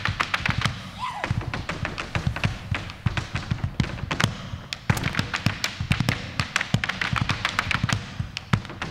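Malambo zapateo: dancers' boots stamping and tapping on the stage floor in fast, rhythmic strikes, several a second, with low thumps and music underneath.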